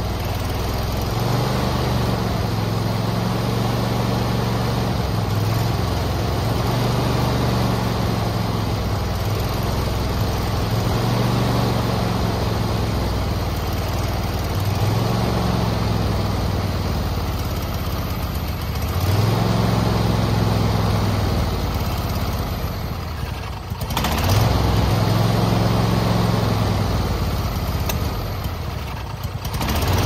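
John Deere LA120 riding mower's engine running with its speed rising and falling every few seconds, dipping twice near the end before picking back up. This is a surge, which the owner puts down to carburetor tuning.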